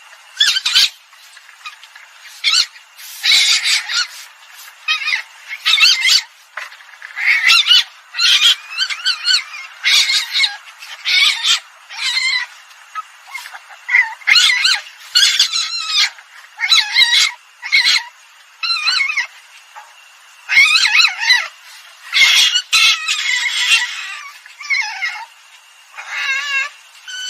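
Common palm civet calls played as a hunter's lure recording: repeated harsh, squawking cries in short bursts, one after another with brief gaps.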